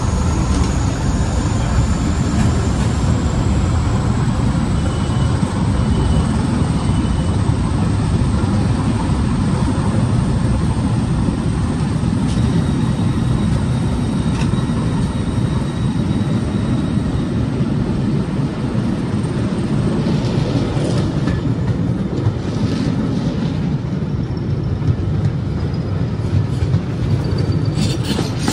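The diesel engine of a 'Thumper' diesel-electric multiple unit (English Electric 4SRKT) running under power as the train pulls away and gathers speed. A steady, heavy low drone, with wheels clicking over rail joints near the end.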